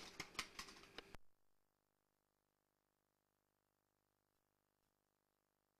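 A few faint clicks and knocks of plastic toy figures on a wooden tabletop, then the sound cuts off abruptly about a second in and dead silence follows.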